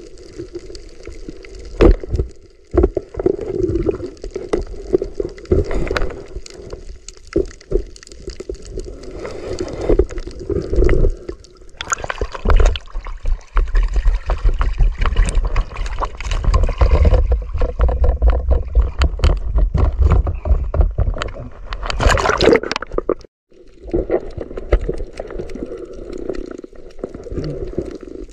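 Water gurgling and sloshing around an underwater camera, with many small knocks and clicks. Through the middle stretch the sound grows louder and fuller as a speared fish is hauled up through the surface with splashing. It cuts out for a moment, and then the underwater gurgling returns.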